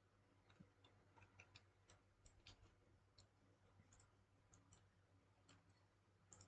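Near silence with faint, irregularly spaced clicks of a computer mouse over a low steady hum.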